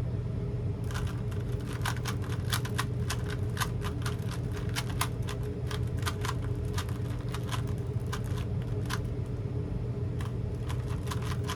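Plastic Rubik's cube being turned fast by hand: rapid, irregular clicking and clacking of the layers, with a short lull about nine seconds in. A steady low hum runs underneath.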